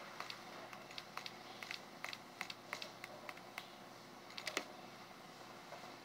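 Stylus tapping on a Nokia N900's touchscreen: a string of small, irregular clicks, with a quick cluster of louder ones about four and a half seconds in.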